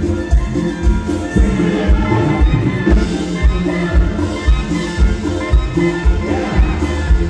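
A Mexican banda playing live: clarinets and trombones over a sousaphone and a bass drum beating about twice a second.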